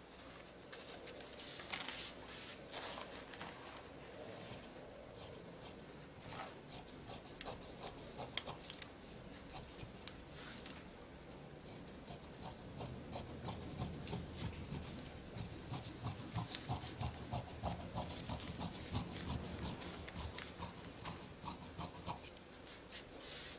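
Fabric shears cutting knit dress fabric along a paper pattern: short crisp snips coming about three a second through the second half. Before that come a few scraping strokes of a tailor's marker drawn along a ruler.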